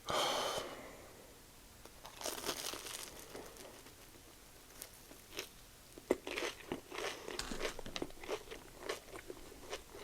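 Close-up crunching and chewing of a Korean corn dog's thick, crispy battered coating: a bite at the start, a burst of crunching around two seconds in, then a run of crisp crunches from about six seconds on.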